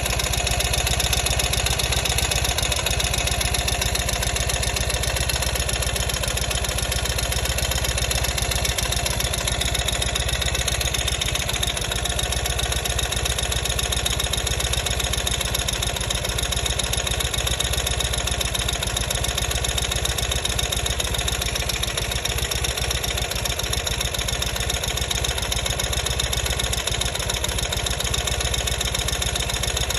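2020 Ural motorcycle's air-cooled flat-twin engine idling steadily, heard through a mechanic's stethoscope.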